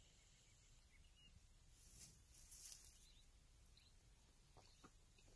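Near silence: faint outdoor ambience with a few soft bird chirps and a brief high hissy rustle about two seconds in.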